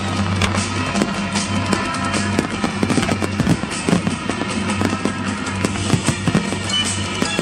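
Aerial fireworks going off in a rapid, irregular string of bangs and crackles, with music playing underneath.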